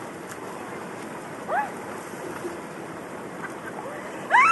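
River water rushing steadily. Short high rising-and-falling calls break through twice, once about a second and a half in and louder near the end.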